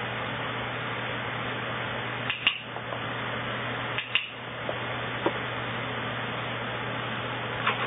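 Sharp clicks of a dog-training clicker: a quick double click about two and a half seconds in, another about four seconds in, and a single click near the end, over a steady background hiss and hum.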